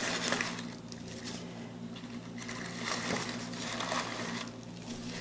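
Faint rustling and soft handling sounds as plastic-gloved hands tuck shredded decorative straw around a chocolate egg on a cardboard base, over a steady low hum.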